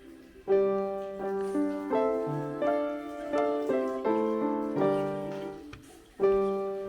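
Background piano music: single notes and chords that ring and fade, with brief pauses between phrases.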